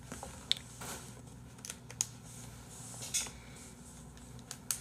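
A few isolated small clicks, about four spread over the few seconds, over quiet room tone.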